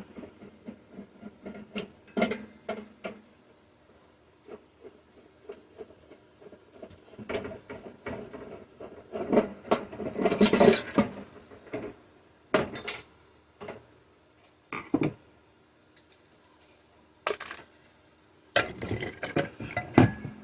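Metal clicks, clinks and rattles of microwave parts being handled as the magnetron's mounting screws are taken out, in irregular bursts with the busiest clatter about halfway through and again near the end.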